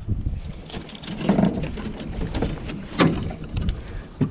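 Knocks and clatter as a small smallmouth bass is brought into an aluminum boat on a rod, with the sharpest, loudest knock about three seconds in.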